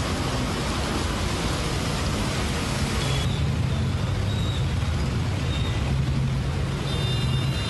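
Heavy rain and wind making a dense, steady hiss. About three seconds in it changes to traffic in the rain: vehicle engines running with a low hum under the noise of the rain.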